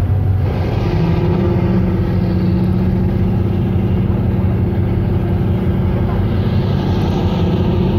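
Boat's diesel engine running steadily underway, with wake water churning alongside; its note shifts higher about half a second in.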